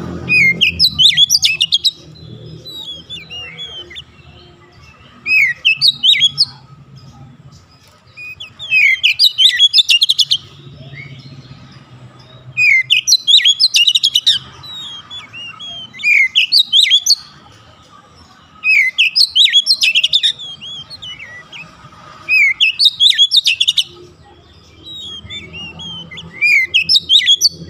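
Oriental magpie-robin singing: loud phrases of quick, sweeping whistled notes, each one to two seconds long, repeated about every three to four seconds.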